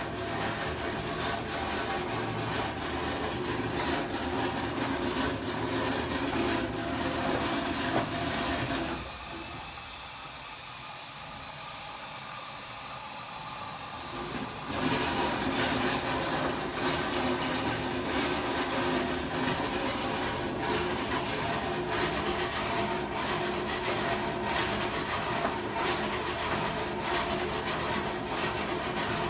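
LG front-load washing machine running with a loud, rapid rattling from inside the cabinet: the shipping bolts were never removed. For about six seconds in the middle the rattle drops away to a quieter steady hiss, then it comes back.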